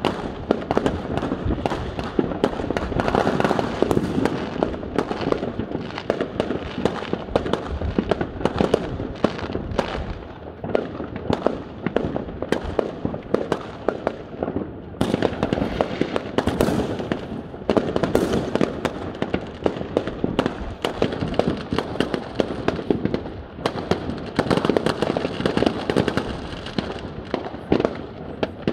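Fireworks going off in a dense, unbroken barrage: many aerial shells bursting, with rapid bangs and crackling overlapping one another. The barrage eases slightly for a few seconds midway, then picks up again.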